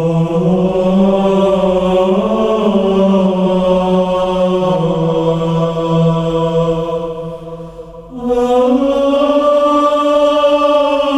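Music of chanted voices holding long, sustained notes, stepping up to a higher held note about eight seconds in after a brief fade.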